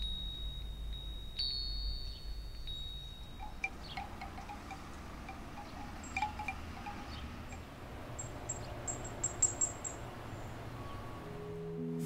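A metal furin (Japanese wind bell) ringing with long, high, steady tones, followed from a few seconds in by a bamboo wind chime, its hollow tubes knocking together in quick irregular clusters, over a light wind. Soft music comes in near the end.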